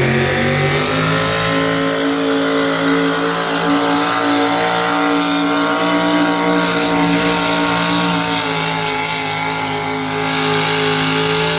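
Econo Rod class pulling tractor's engine running hard under load as it drags a weight-transfer sled. Its pitch climbs in the first second, then holds steady with slight wavering.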